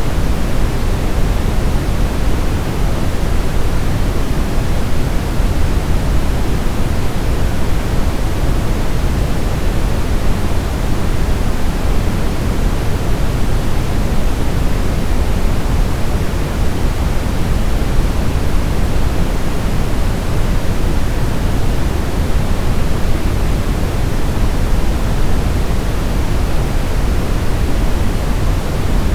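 Steady, unchanging electronically generated white-noise sleep sound, heavier in the low end and thinning toward the highs, like pink noise.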